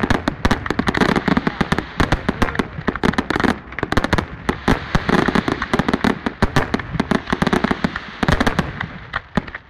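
Aerial fireworks display: a dense, unbroken barrage of shell bursts and crackling, many sharp bangs a second, dipping briefly near the end.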